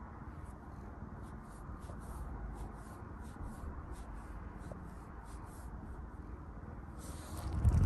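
Quick, soft scratchy strokes, several a second and unevenly spaced, then a louder bump with a rustle near the end.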